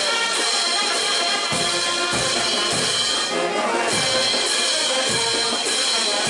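Brass band playing: held brass notes over a bass drum beat.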